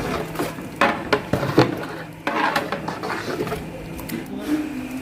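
Metal cooking vessels and utensils clattering, with several sharp knocks in the first half, over a low steady hum.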